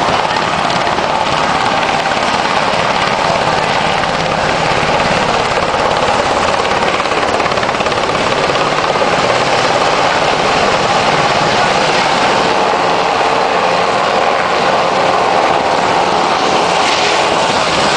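UH-60 Black Hawk helicopter flying low overhead with a Humvee slung beneath it, its rotor and turbine noise loud and steady.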